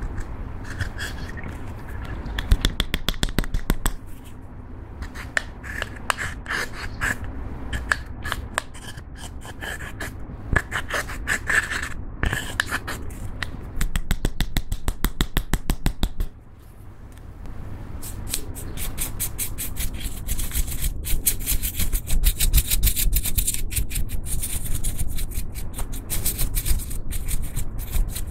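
A plastic spatula scraping and crumbling pressed eyeshadow powder out of a palette's pans, with fast gritty scratching and small clicks. Partway through comes a run of quick, evenly spaced strokes, and the scratching grows denser and brighter in the second half.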